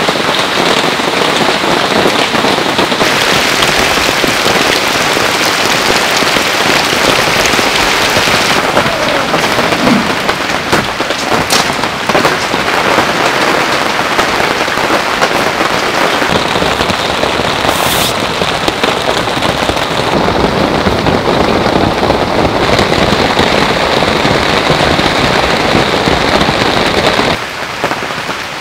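Heavy storm rain pelting a tent, a dense, steady hiss and patter that drops somewhat in level near the end.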